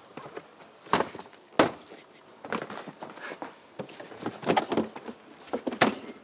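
Plastic cooler boxes being handled and loaded: a string of hollow knocks and bumps, the two sharpest about a second and a second and a half in, then a cluster of smaller bumps.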